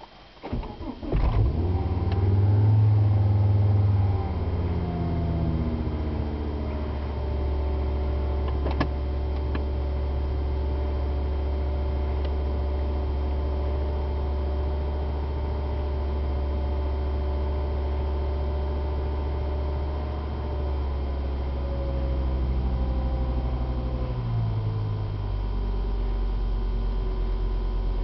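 1997 Volvo V70's 2.5-litre five-cylinder engine cold-starting at −4 °C: a moment of cranking, then it catches and runs loud, with the revs sinking over a few seconds to a steady fast idle near 2,000 rpm. About three quarters of the way through, the revs drop again and it settles into a lower idle near 1,000 rpm.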